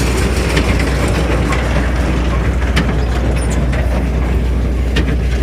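Tractor engine running steadily while pulling a round baler, with scattered light clicks and rattles from the baler's mechanism.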